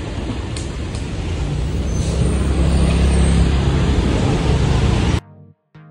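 Motor vehicle engine and road noise: a dense rumble and hiss with a steady low engine hum that grows louder about a second and a half in. It cuts off suddenly near the end, and plucked background music starts.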